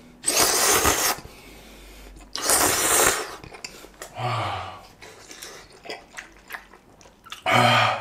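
A person eating hot udon noodles and broth: two loud, breathy slurping sounds in the first three seconds, then short low hums of enjoyment, a louder one near the end.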